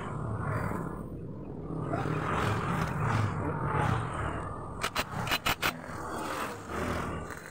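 Honda Vario 125 scooter engine running and being revved in repeated swells, its CVT running quietly after the pulley bearing was replaced. A quick run of four or five sharp clicks comes about five seconds in.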